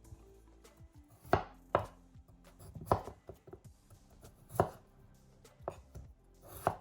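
Kitchen knife chopping peeled raw potatoes on a cutting board: about six sharp chops, unevenly spaced.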